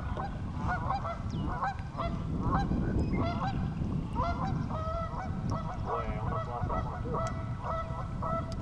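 Geese honking in a quick, unbroken run of calls, two or three a second, some overlapping.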